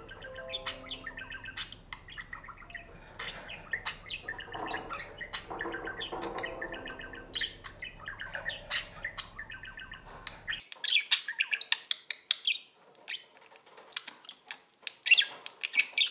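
Budgerigar courtship warble: a fast, chattering run of chirps and clicks, the sound a budgie makes while courting its mate. About ten seconds in, it gives way to louder, higher budgie chirping in dense bursts.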